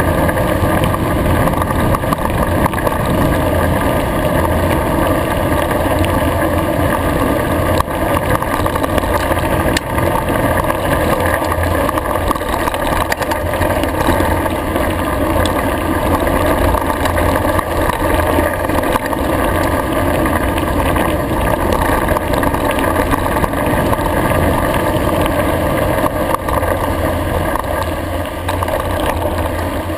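Mountain bike rolling fast down a gravel road: steady wind noise on the camera microphone mixed with tyres crunching over gravel and the bike rattling, easing off a little near the end.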